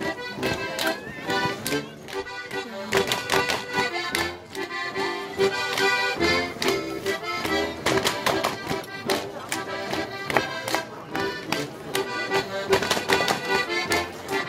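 Accordion playing a lively traditional Alpine dance tune, with sharp hand slaps and shoe stomps from Schuhplattler dancers striking their thighs and soles in rhythm over it.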